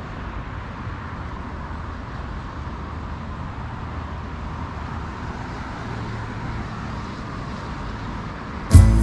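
Steady outdoor road-traffic noise, an even hum of passing cars. Music comes back in near the end.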